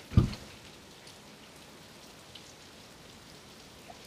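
Steady rain falling on pavement and grass, an even hiss, with one short low thump just after the start.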